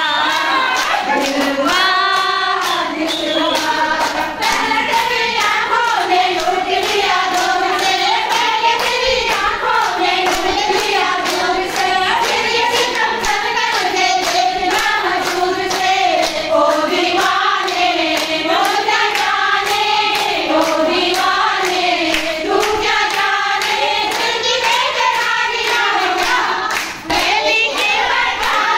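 A group of women singing a song together, with steady rhythmic hand-clapping keeping the beat.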